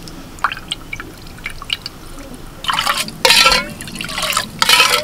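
Grape juice being mixed in a steel bowl: a few light clinks and drips, then, from a little past halfway, a ladle pouring the juice back into the bowl in several splashing pours.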